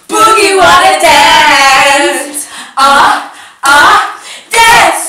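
Women singing a song with no instruments, in loud phrases broken by short pauses about three and four seconds in.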